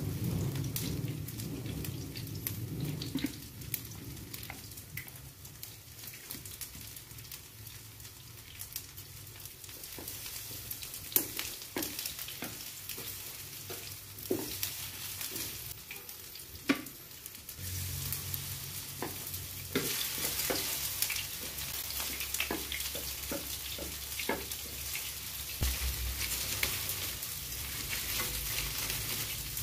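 Flour-coated baby corn frying in a pan: a steady sizzle that grows louder about two-thirds of the way through, with a few sharp clicks, the two strongest about 11 and 17 seconds in.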